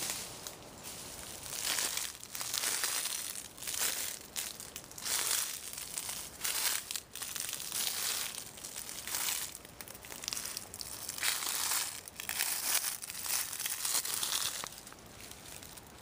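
Footsteps crunching through dry leaf litter, a run of irregular crunches roughly every half second to a second, easing near the end.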